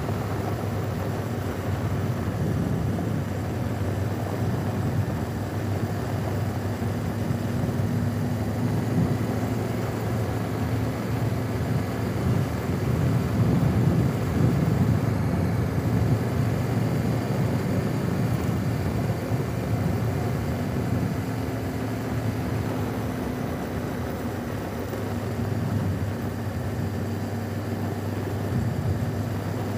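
2017 Honda Africa Twin's parallel-twin engine running steadily while riding, its level swelling a little now and then.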